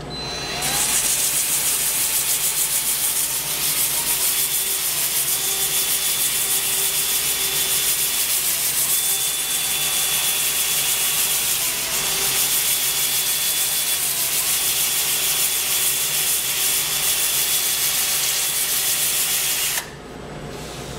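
Power sanding: a cordless drill spins a sanding disc against a wooden spindle turning on a lathe, giving a loud, even scratchy hiss with a thin motor whine that shifts pitch now and then. It starts about half a second in and cuts off sharply near the end.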